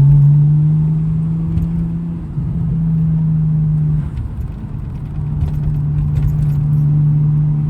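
Nissan Skyline R34 GTT's turbocharged RB25DET straight-six running as the car is driven, a steady engine drone with a faint jingle of keys. The engine note drops off for about a second around four seconds in, then comes back.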